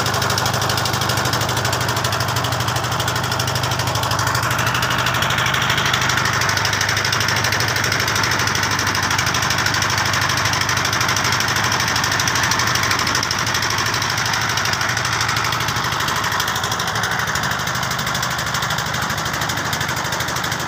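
A river boat's engine running steadily, a low, even drone.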